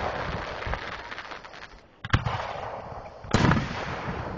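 Aerial firework shells bursting: two sharp bangs, about two seconds in and again just over a second later, each followed by a fading rumble, with the tail of an earlier burst dying away at the start.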